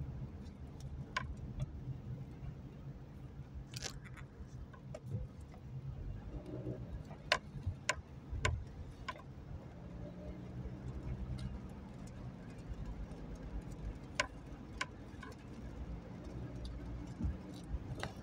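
Car cabin noise while driving on a wet road: a steady low rumble of engine and tyres, with scattered sharp ticks at irregular intervals.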